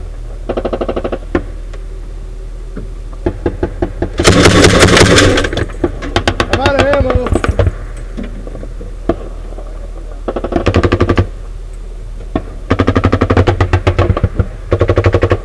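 Automatic weapons fire in a firefight: several separate bursts of rapid shots with pauses between them, the loudest and longest about four seconds in. A shout is heard about six seconds in.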